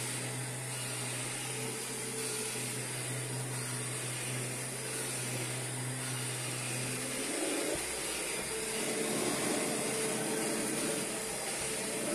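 Kirby G5 upright vacuum cleaner running steadily with a motor drone and high hiss; about seven seconds in its tone changes, the low hum dropping away and the sound turning rougher and crackly, before the hum returns near the end.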